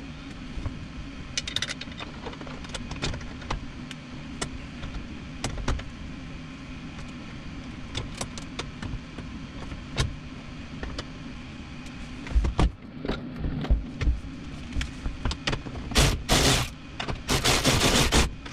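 Small clicks and knocks of metal parts and wiring being handled while an electric power steering motor is fitted to the steering column under a car's dashboard, over a steady low hum. A few louder scraping sounds near the end.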